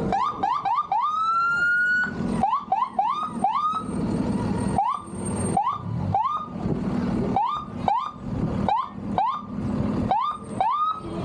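An electronic siren sounding a run of short rising whoops, about two to four a second. In the first two seconds a few of them are longer, slower rising sweeps. A steady background noise runs underneath.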